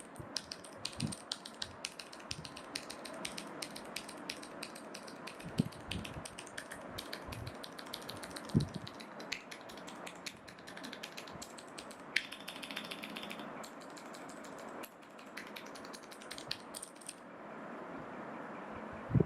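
Typing on a mechanical keyboard with clicky Cherry MX Blue switches: a quick run of key clicks, with a few heavier knocks mixed in, that stops about 17 seconds in.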